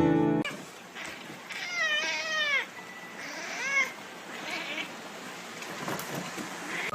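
A cat meowing: a long, wavering meow about a second and a half in, then a short meow near the middle and a faint one after it.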